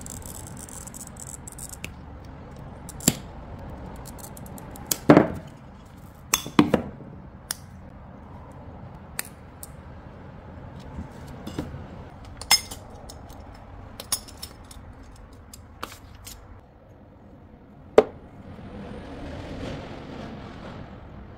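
Aqua Mist English Muffle textured glass being cut by hand: sharp clicks and snaps as the glass is scored and broken, and as the pieces clink. There are about a dozen clicks, the loudest about five and six and a half seconds in, and a softer scraping and rustling near the end.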